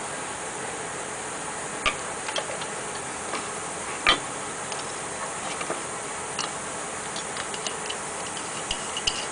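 Light clicks and taps of a brass soap pump, its plastic dip tube and a metal mason jar lid being handled and fitted together, the loudest a sharp click about four seconds in. Near the end comes a run of small ticks as the lid's screw band is turned onto the glass jar. A steady hiss lies underneath.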